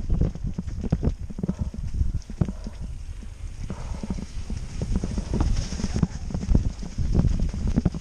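Mountain bike clattering over a rough dirt trail at speed: a fast, uneven run of knocks and thuds as the tyres and bike rattle over roots and bumps, heard through a helmet-mounted camera.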